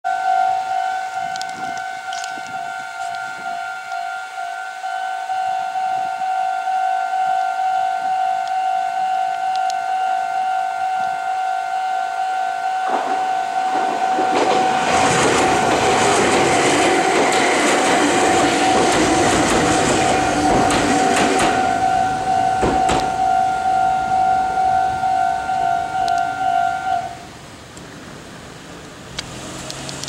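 Japanese level-crossing warning bell ringing in a steady repeating pattern, while a Meitetsu 5000 series electric train passes through the crossing from about 13 to 22 seconds in, with a loud rush of wheel and rail noise and rapid clicks. The bell stops about 27 seconds in, as the crossing clears.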